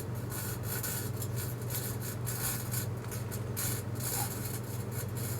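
Microwave oven running: a steady electrical hum with an uneven rasping hiss over it.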